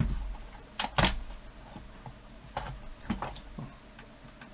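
Sharp clicks and light knocks of a radio's plastic parts and connectors being handled and plugged back together, about eight in all, the loudest pair about a second in.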